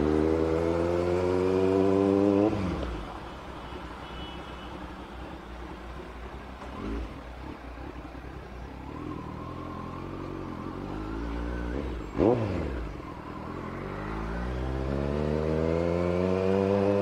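Kawasaki Z900's inline-four engine pulling through a gear, revs climbing until about two seconds in. The throttle then closes and it runs quieter at low revs. There is a short sharp rev near twelve seconds, then it accelerates again with the revs climbing steadily toward the end.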